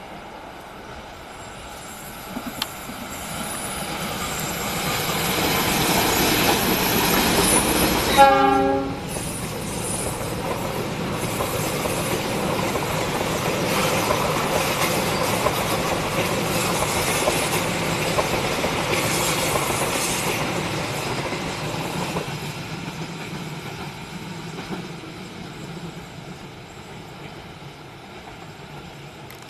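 Diesel-locomotive-hauled passenger train approaching and passing: running noise builds up, one short horn blast sounds about eight seconds in, then the coaches roll past with a steady rail clatter and a thin high wheel squeal at times on the curve, fading away toward the end.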